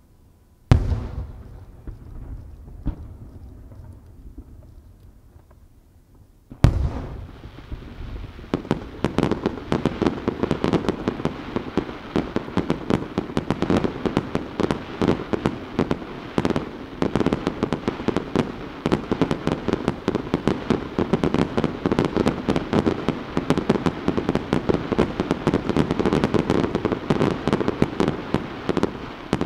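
Fireworks: a big aerial shell bursts with a loud boom about a second in and echoes away, and a second boom follows about six seconds later. From around eight seconds a rapid barrage of many small shells keeps popping and crackling, several reports a second.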